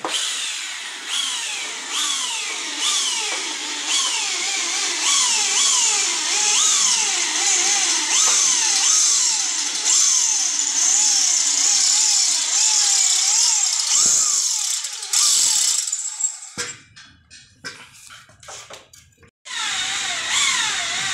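Electric drill driving screws into a steel table frame, its motor pitch rising and falling with each short squeeze of the trigger, about once a second. It stops about 14 s in, a few knocks and clicks follow, and the drill starts again near the end.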